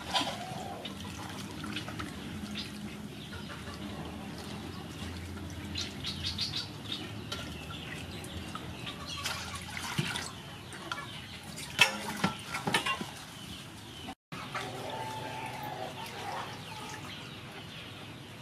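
Water splashing and sloshing in a metal basin as lettuce leaves are rinsed by hand, with a pour of water from a metal bowl into the basin about ten seconds in.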